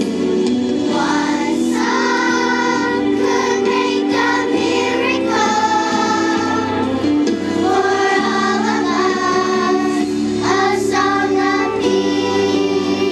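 Children's choir singing a song over a steady instrumental accompaniment; the voices stop about a second before the end, leaving the accompaniment playing.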